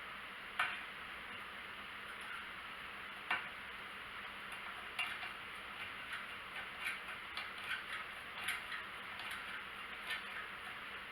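Light clicks and taps of small screws and fan parts being handled and fitted by hand: a single click early, another about three seconds in, then a loose run of small clicks over the second half, above a steady faint hiss.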